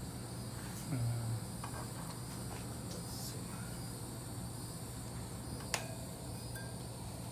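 Shifter parts being fitted onto the transmission's shift shaft: a few faint metal clicks and one sharp click just before six seconds, over a steady faint high hiss.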